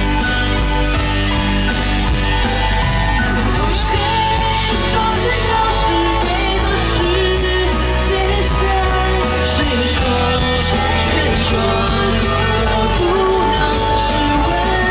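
Live, amplified rock-pop band playing loudly with steady bass, and a woman singing into a handheld microphone over it.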